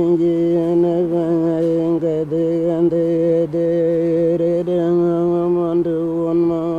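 Background music: one sustained droning note held at a single steady pitch, its upper overtones wavering and shifting, broken only by a few very brief dips.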